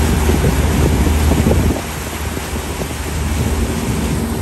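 A small fishing boat's motor running steadily under way, with water rushing in the wake and wind buffeting the microphone. The sound drops in level about two seconds in.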